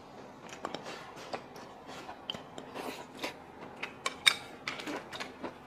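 A person chewing a mouthful of stir-fried pork intestines with pickled cabbage and crisp bamboo shoots, giving a run of small irregular crunches and wet mouth clicks.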